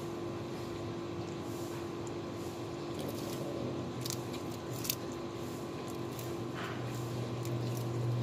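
Kittens chewing and crunching shrimp shells, with a few sharp crunches about three to five seconds in. A steady low hum runs underneath and grows louder in the second half.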